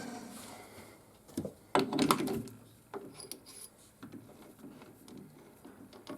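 A steady machine hum dies away in the first second, then a few sharp clicks and knocks with some rubbing, the loudest cluster about two seconds in.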